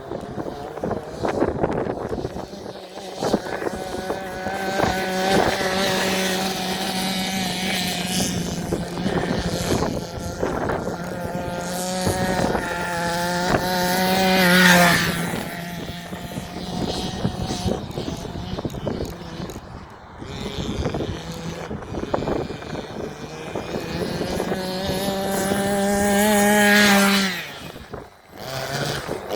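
Small two-stroke petrol engine of a 1/5 scale RC car running during its break-in, buzzing steadily and rising in pitch twice as the car accelerates. The engine peaks about halfway through and again near the end, then drops away sharply.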